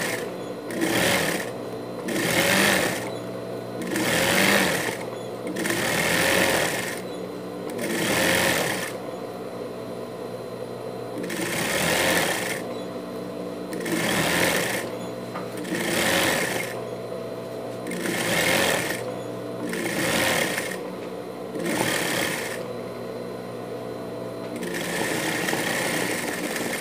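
Industrial straight-stitch sewing machine stitching a fine seam in about a dozen short runs of a second or so each, with a longer run near the end. Its motor hums steadily between the runs.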